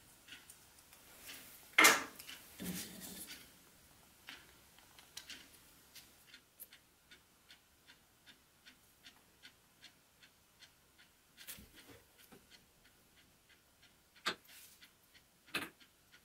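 Steady, even ticking, about two ticks a second, with a sharp click about two seconds in and a few more clicks near the end from small metal and wooden parts being handled.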